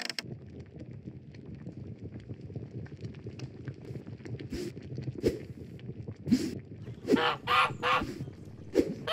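Domestic geese honking: a few scattered calls, then a quick run of repeated honks from about seven seconds in, over a steady low background noise.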